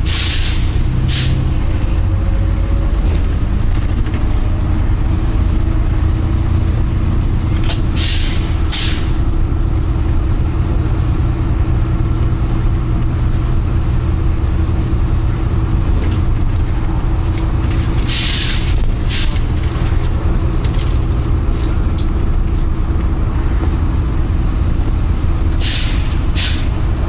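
Volvo B9TL double-decker bus running, heard from inside the cabin, with a steady engine and road rumble. Over it, its air system gives short double hisses ('pshhh pshhh') four times, every several seconds. That is far more often than this bus type normally makes the sound.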